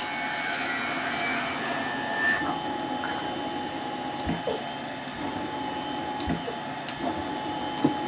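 Cough Assist mechanical insufflator-exsufflator running steadily, its blower giving a rush of air with a constant hum, set to exhale (suction) through a face mask to pull secretions out of a stuffy nose. A few faint knocks sound over it.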